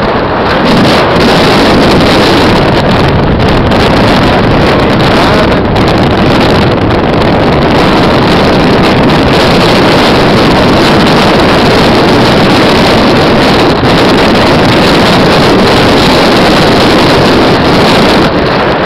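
Strong wind buffeting the camera microphone: a loud, steady rushing roar with no let-up.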